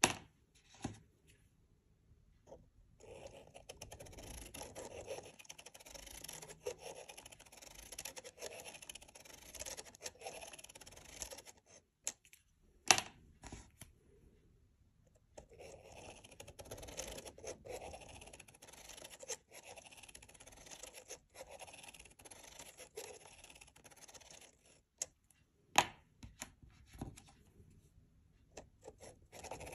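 Felt-tip marker scratching across paper as it is driven around a plastic Spirograph wheel, in two long stretches of steady scratching. Between them come a few sharp clicks, the loudest about thirteen seconds in and another near the end.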